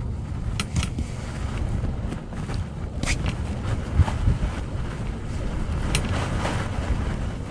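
Low, uneven wind rumble on the microphone, with three faint clicks.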